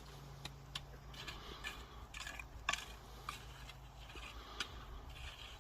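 Excavator engine idling low and steady, with scattered light clicks and taps over it.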